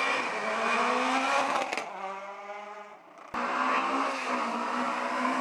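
Rally car engine revving hard as it accelerates, with a brief break in the note about two seconds in, like a gear change, then a lower note that fades. About three seconds in, the sound cuts suddenly to another rally car's engine running at high revs.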